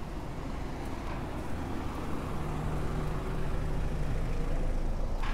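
Low, steady hum of a motor vehicle's engine, growing louder toward the end.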